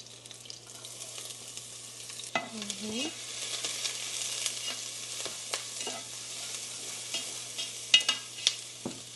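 Garlic sizzling in hot oil in a pan as it is stirred, the utensil clicking and scraping against the pan. A few sharper knocks near the end.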